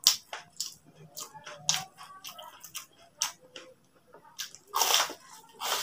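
Close-up chewing of crispy fried tofu: a run of sharp, dry crunches and crackles, with two louder crunches near the end.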